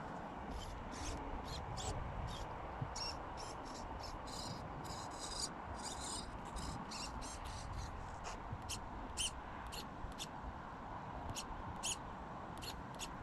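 Wind buffeting the microphone as a steady low rumble, with many short, irregularly spaced high-pitched clicks scattered over it.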